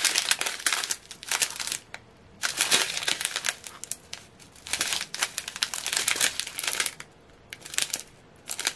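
Small plastic zip bags of diamond painting drills crinkling as they are handled and shuffled through, in several bursts with short pauses between.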